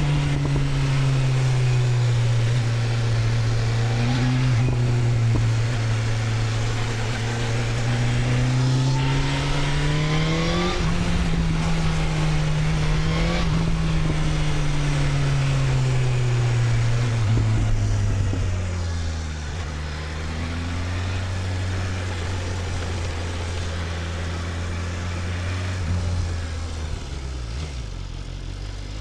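BMW S1000RR inline-four engine running under way, its note rising and falling with the throttle. About two-thirds through it drops to a lower, steadier note.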